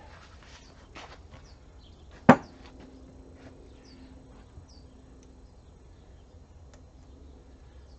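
A single sharp metallic clank about two seconds in, as a steel part or tool strikes the NP229 transfer case internals. It is followed by a ringing tone that dies away over about five seconds, with small clicks of parts being handled.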